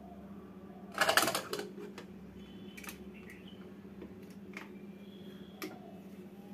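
Pressure cooker lid being fitted and closed: a loud metal scrape and clatter about a second in, then several sharp metal clicks as the lid and handle are set. A steady low hum runs underneath.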